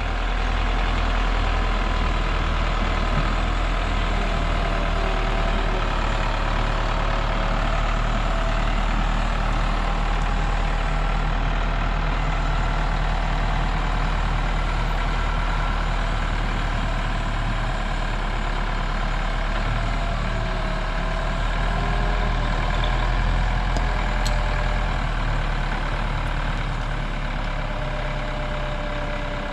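Caterpillar wheel loader's diesel engine running steadily under heavy load while it lifts a heavy steel barge, the pitch shifting slightly around the middle.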